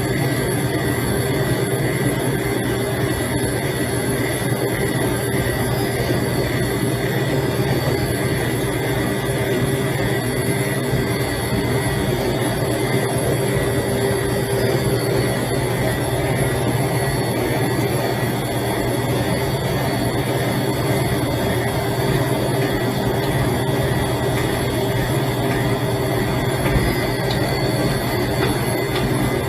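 Stand mixer running steadily with its paddle beating buttercream, letting the butter work in until the mix smooths out.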